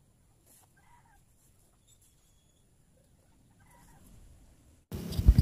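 Mostly quiet, with a few faint short calls in the distance, like a hen clucking. Near the end a loud low hum with several heavy thumps cuts in abruptly.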